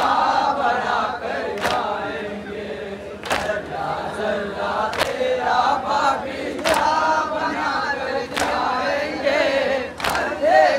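Group of men chanting a noha in unison, punctuated by sharp collective chest-beating slaps (matam) struck together in a steady beat about every 1.7 seconds, seven strikes in all.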